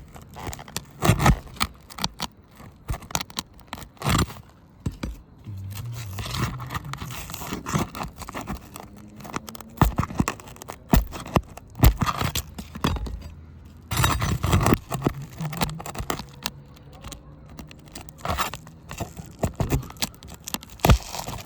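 Metal snake tool working under a brittle roof shingle to pull its nails: irregular scraping with many sharp knocks and clicks.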